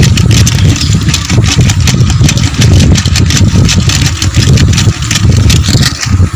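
Wooden churning stick twirled between the palms and pounded inside a clay pot: a rapid, loud, continuous run of knocks and scrapes against the pot as the aloe vera mixture is churned.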